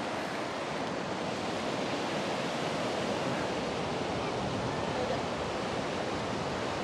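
Ocean surf breaking along the beach: a steady, even rushing wash with no distinct crashes.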